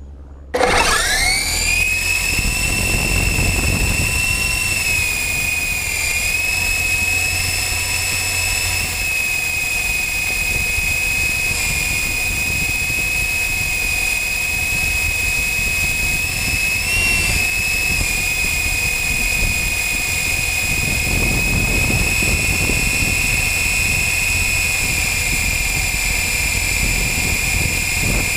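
RC helicopter spooling up about half a second in, its high whine rising quickly to a steady pitch, then running steadily in flight over a low rumble, heard from a camera mounted under its frame.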